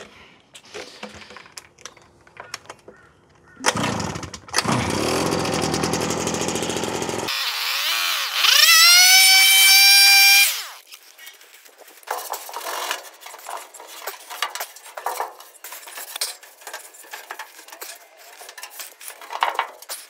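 Electric blower blowing dust out of a stripped clothes-dryer cabinet. First comes a few seconds of loud rushing air. Then a motor whine rises in pitch, levels off and stops sharply, and light clatter and handling noises follow.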